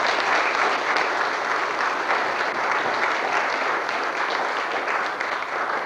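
Audience applauding as a song ends: dense, steady clapping that thins slightly near the end.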